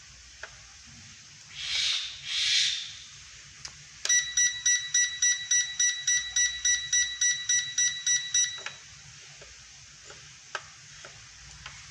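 Rapid electronic beeping from a powered-up toy quadcopter drone set, about four even beeps a second for some four and a half seconds. It comes after two short soft rushes of noise.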